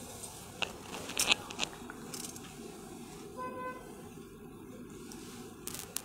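Quiet background noise with scattered sharp clicks and crackles, the loudest cluster about a second in and more near the end, and a short faint tone a little past halfway.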